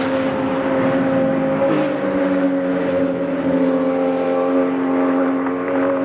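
A Porsche 911 racing car's flat-six engine running hard as the car pulls away up the track. The engine note holds a steady pitch and steps up slightly a little under two seconds in.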